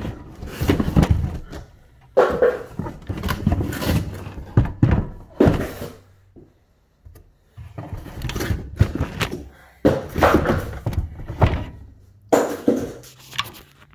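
Irregular thuds, knocks and scraping as a large electrical panel and its cardboard packing are pulled out of a box, with the recording phone being jostled as well. The noise stops for about a second and a half partway through.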